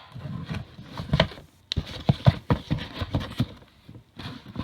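Handling noise: a string of irregular light taps and knocks with some rustling, as the camera is set down and the motherboard box and its packaging are handled.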